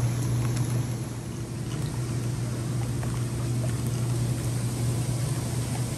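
Hot tub jets running: a steady low pump-motor hum under the rushing and bubbling of churned water.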